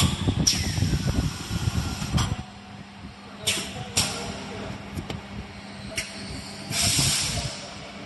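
Automatic PVA detergent pod packing machine running, its pneumatic cylinders clicking and letting out short hisses of compressed air, with a longer hiss of exhausting air about seven seconds in. A steady low hum runs underneath, and there is a busier rumble of machine motion in the first two seconds.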